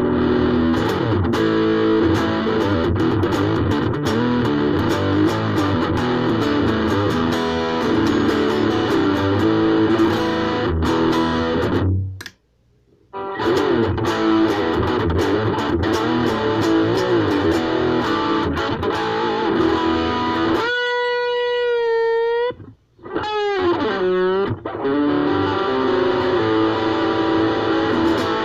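Ibanez AXS42 electric guitar, its internal wiring swapped for solid-core vintage wire, played in a sound check with chords and riffs. The playing stops briefly about twelve seconds in. Later comes a held single note with vibrato, followed by a quick dip in pitch before the riffing resumes.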